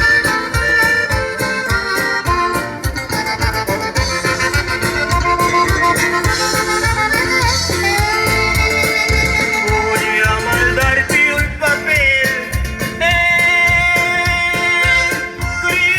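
A live band playing a song at a sound check: drums keeping a busy beat under a held melodic line.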